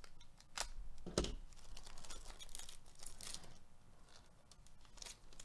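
Foil wrapper of a Panini Mosaic baseball card pack being torn open and crinkled by gloved hands: a couple of sharp crackles in the first second or so, a longer stretch of crinkling in the middle, and another crackle near the end.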